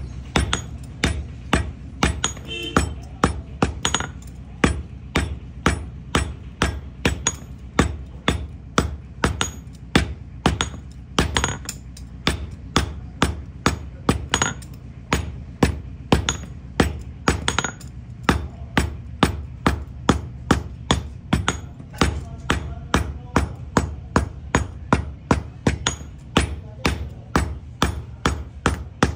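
Hand hammer striking a small metal cube held with tongs on a steel anvil block, in a steady run of sharp metallic blows at about two to three a second.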